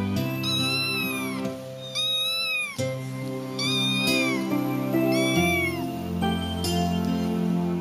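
Young kitten meowing about four times, each call rising and then falling in pitch, over soft background music.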